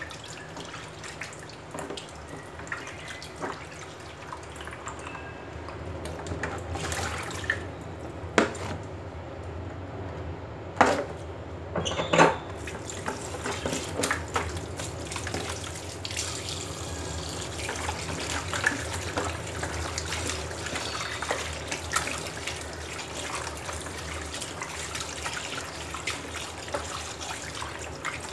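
Raw chicken being rinsed by hand in a plastic bowl of water in a sink: water splashing, sloshing and dripping as the pieces are handled. A few sharp knocks stand out, the loudest about 11 and 12 seconds in.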